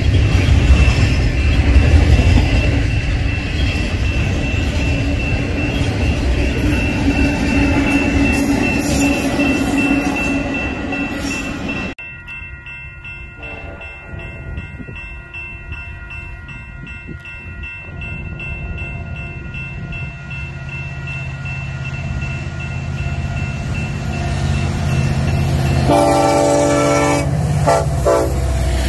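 Double-stack container train rolling past close by, a heavy rumble of wheels on rail that cuts off suddenly midway. Then grade-crossing bells ring in a steady repeating pattern while an approaching Union Pacific locomotive's rumble builds, and its air horn sounds about three seconds before the end.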